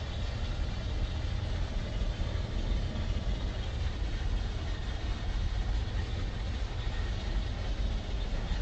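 Escalator running: a steady low rumble with a faint hiss above it.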